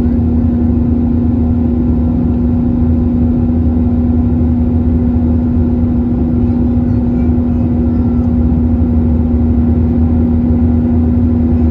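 Steady cabin drone of an Airbus A321-231 in flight, its IAE V2500 engines running: an even rumble with a constant low hum, unchanging throughout.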